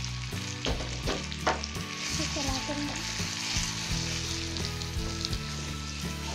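Moong dal paste sizzling as it fries in hot ghee in a kadhai, stirred with a spatula.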